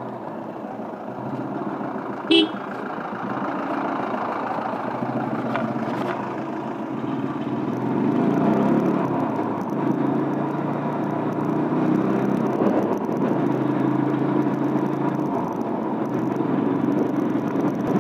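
Motorcycle running on the road, its engine a steady hum under wind and road noise, growing somewhat louder about eight seconds in. A short horn beep sounds about two seconds in.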